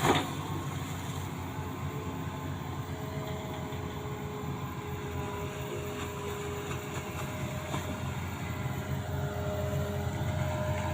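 Amphibious excavator's diesel engine running steadily, a low drone with a faint steady whine above it, getting a little louder near the end.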